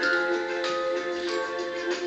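Music: held, sustained tones with new notes entering every half second or so.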